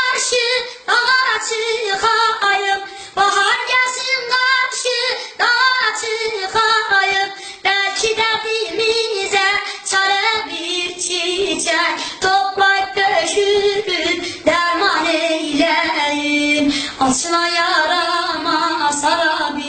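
A boy singing a Turkish folk song (türkü) in a high voice, in long held phrases whose pitch bends and sinks lower around the middle.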